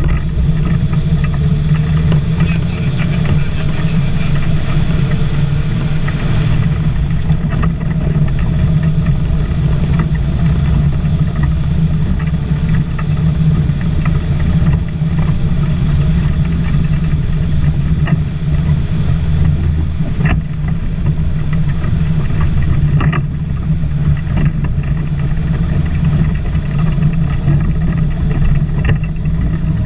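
STAR 660 six-wheel-drive army truck's straight-six petrol engine running steadily under way, heard loud from inside the cab. Two sharp knocks come about two-thirds of the way through.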